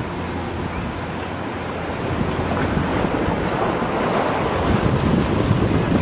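A Formula express cruiser's four outboard motors running under the rush of its wake water, with wind buffeting the microphone. The water noise grows louder after about two seconds.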